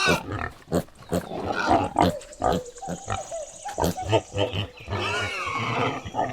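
Piglet grunting and squealing in quick short calls, with a few longer pitched squeals in the middle and near the end.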